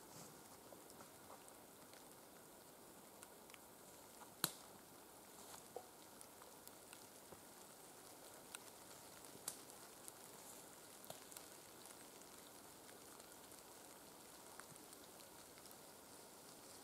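Near silence with faint, scattered crackles and ticks, and one sharper click about four and a half seconds in.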